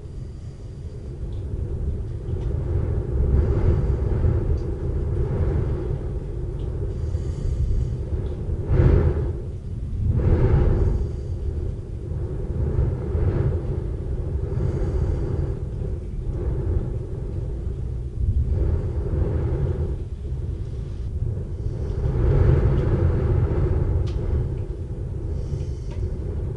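Thunder rumbling low and continuously, swelling and fading every couple of seconds, with a sharper clap about nine seconds in.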